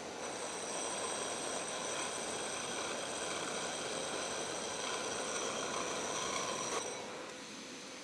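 Pillar drill running a hole saw through a wooden disc: a steady high motor whine over cutting noise. About seven seconds in the whine stops and a quieter steady noise carries on.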